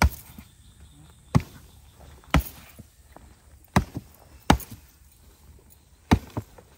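Six sharp chopping strikes, irregularly spaced about a second apart.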